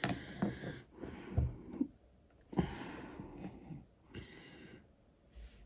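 A person breathing and sniffing close to the microphone, three soft breaths, with a few faint handling taps between them.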